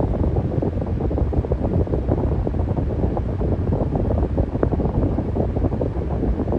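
Electric fan running steadily: a low, even rush of air with a fast flutter, its airflow buffeting the microphone.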